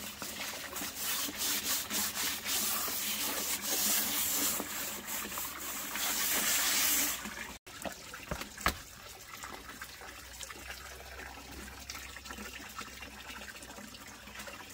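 Running water splashing steadily, growing louder, then stopping abruptly about halfway through. Afterwards a quiet background with a few sharp knocks.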